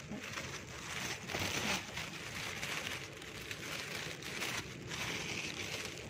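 Thin plastic carrier bag crinkling and rustling as a hand puts picked fruit into it and holds it open, with many small crackles, loudest about one and a half seconds in.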